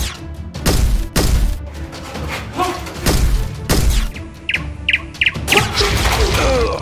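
Cinematic background music laid over added action sound effects: about five heavy booming hits, a quick run of four short high beeps about two-thirds in, and a sweeping glide near the end.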